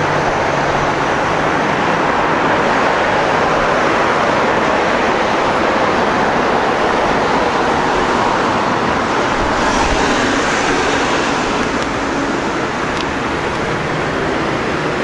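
Exhaust note of a 2014 Honda CBR500R's parallel-twin engine through a MIVV Suono slip-on muffler with its dB killer fitted, idling steadily, heard close to the muffler.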